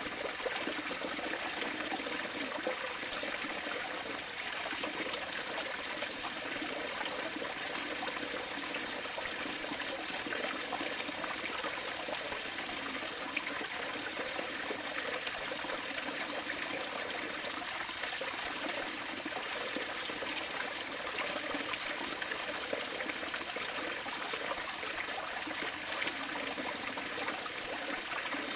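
Steady running water, trickling without a break.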